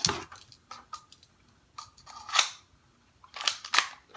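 Plastic handling noises from a cheap airsoft pistol and its bag of BBs: a string of short clicks and rustles, the loudest about halfway through and two more close together near the end.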